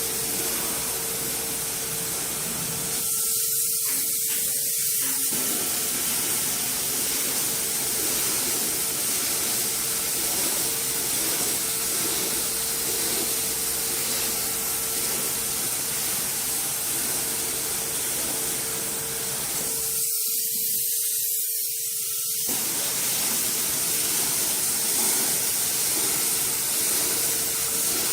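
Insulation spray gun hissing steadily as insulation is sprayed, with a faint steady hum underneath.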